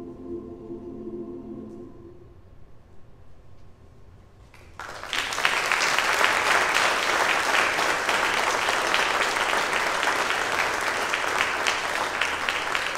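The last held chord of a choral piece dies away, and after a short hush an audience breaks into steady applause about five seconds in.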